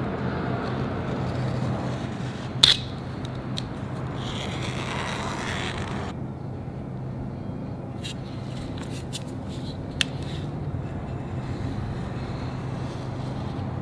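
A steel straightedge being handled on a rubber snow-plow deflector sheet lying on a concrete floor: scraping for the first several seconds, then a few sharp metal clicks, the loudest about three seconds in, all over a steady low hum.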